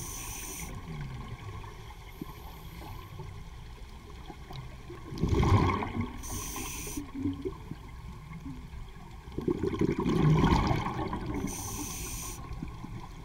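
Scuba diver breathing on a regulator, heard underwater: a short high hiss on each inhalation and a loud rush of bubbles on each exhalation, about twice, over a steady low underwater rumble.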